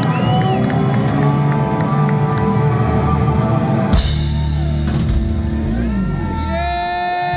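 Live rock band playing with drum kit and electric guitar. About four seconds in, a cymbal and drum hit crashes, and the guitar then holds long ringing notes near the end.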